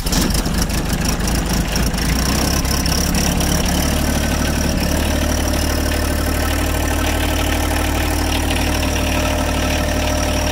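John Deere 1025R compact tractor's three-cylinder diesel engine starting cold in freezing weather after the glow-plug wait: it catches right away and settles into a steady idle after about two seconds.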